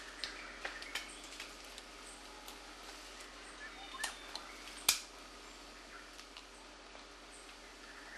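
A hammer stone knocking on a nut and stone anvil, handled by an infant chimpanzee: scattered light taps, with one sharper knock about five seconds in. A faint high chirp repeats about once a second behind it.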